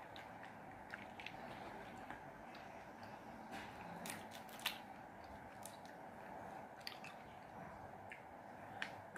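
Close-up eating sounds of fresh lychees: soft wet chewing and squishing of the juicy flesh, with scattered sharp clicks and crackles as the thin, brittle shells are cracked and peeled by hand, the loudest click about halfway through.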